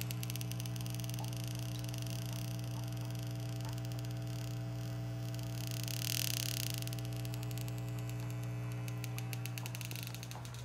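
Electric organ discharges of Peters's elephantnose fish, picked up by bare wires in the aquarium and played through a small amplifier speaker at full volume: rapid, irregular ticking over a loud, steady mains hum.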